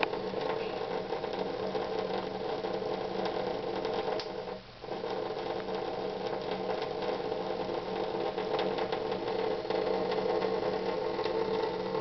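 A small motor humming steadily, with faint irregular ticks over it; the hum dips briefly about five seconds in.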